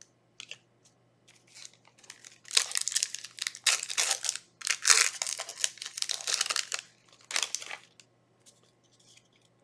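Foil booster pack wrapper being torn open and crinkled, in several noisy bursts from a few seconds in until near the end, with small rustles before and after.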